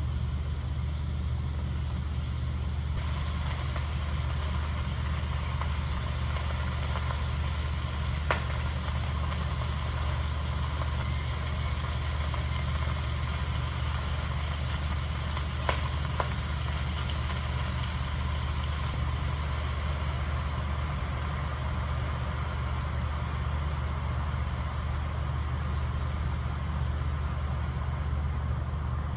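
A steady low hum that does not change, with a few light clicks, one about a third of the way in and two close together around the middle.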